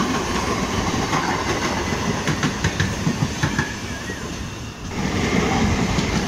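Passenger train running on the track, its wheels clacking over rail joints, with a run of sharp clicks in the middle; the rumble dips briefly near the end and then comes back louder.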